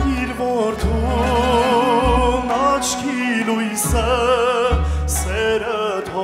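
Man singing an Armenian gusan song with wide vibrato on held notes, accompanied by a live folk orchestra with a steady, repeated bass line.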